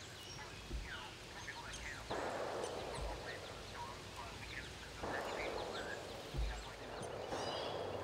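Small backyard songbirds chirping, with many short quick notes throughout. Three rushing bursts of noise start abruptly, about two, five and seven seconds in.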